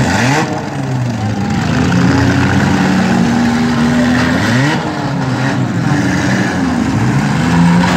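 Several front-wheel-drive demolition derby cars' engines running and revving at once, their pitches overlapping and rising and falling as the cars manoeuvre for hits.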